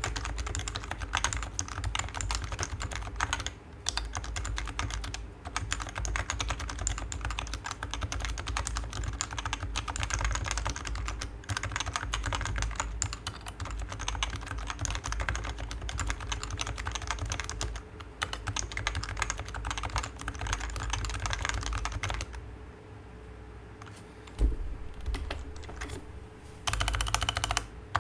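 Fast typing on a Geonworks F1-8X V2 keyboard converted to Topre electro-capacitive switches, the keystrokes coming in quick continuous runs with brief pauses. Near the end the typing stops for a few seconds, broken by a single knock, and then starts again.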